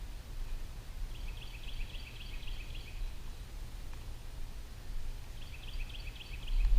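A songbird singing two phrases of quick repeated high notes, the first about a second in and the second near the end, over a low steady rumble.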